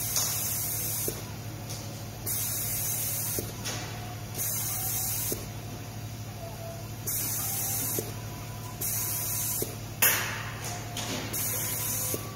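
Pick-and-place machine's pneumatic nozzle hissing in bursts of about a second, roughly every two seconds, each pick and place of a part, over a steady low machine hum. One sharper, louder burst comes about ten seconds in.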